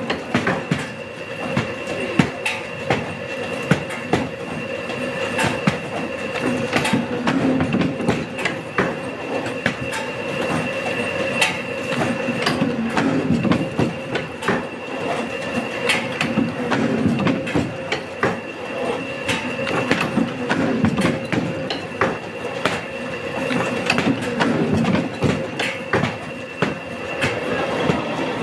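Industrial paper cutting machine running with a steady hum and whine, with sharp knocks and clatter about once a second as the cutter strokes and paper stacks are shuffled through it.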